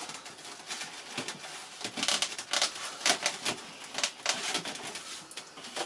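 Irregular clicks, taps and scraping rustles of small model-aircraft parts being handled and fitted on a workbench.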